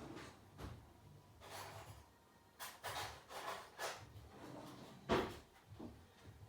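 Cardboard box and packaging being handled and opened: a series of short scraping and rubbing sounds, with a louder knock about five seconds in.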